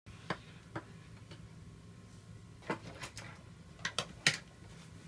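A series of short, sharp handling clicks and knocks at uneven intervals, the loudest about four seconds in, over a faint steady low hum.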